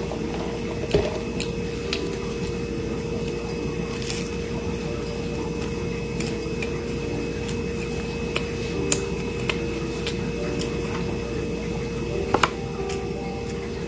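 Close-up mouth sounds of someone eating a toasted panini sandwich: chewing with small scattered clicks and smacks, and a couple of sharper clicks about a second in and near the end. A steady hum runs underneath.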